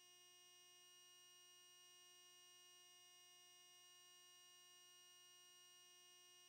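Near silence, with only a faint, steady electronic hum and whine of several fixed tones from blank video playback.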